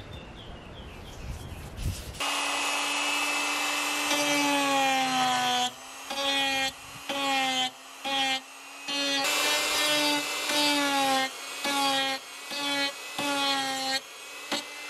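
Electric die grinder with a carbide rasp bit carving into wood. From about two seconds in the motor whines steadily, and its pitch sags a little each time the bit bites. The sound breaks off briefly again and again.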